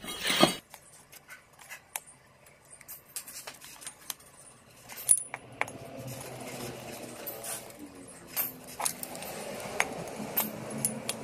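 Light metallic clicks and taps as a steel tube and a knife blade are handled, with a louder clatter right at the start. In the second half, a faint steady scraping as the blade trims the protruding rubber hose bushing flush with the end of the tube.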